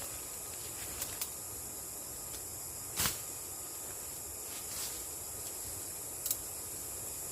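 Steady high-pitched insect chorus, with a few sharp clicks or snaps over it, the loudest about three seconds in.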